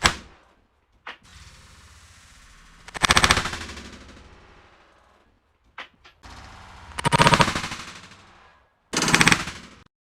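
Gunfire: a sharp bang at the start, then three loud bursts of rapid fire about 3, 7 and 9 seconds in, each fading out over about a second.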